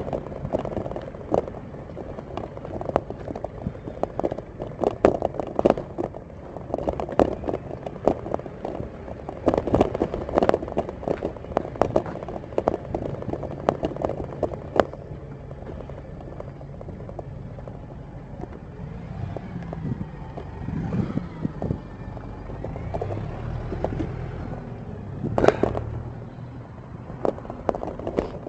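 Irregular rattles and knocks from a handlebar-mounted camera jolting along over paving slabs. They come thick and fast for the first half and grow sparser later. In the second half there is a low steady hum, and one sharp knock comes near the end.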